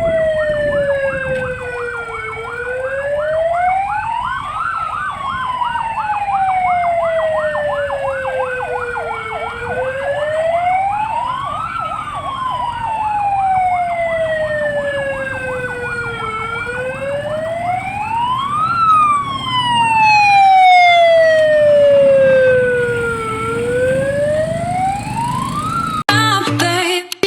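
Vehicle siren wailing, its pitch slowly rising and falling about every seven seconds, with a second, faster warbling siren sounding over it for most of the time. Music cuts in abruptly near the end.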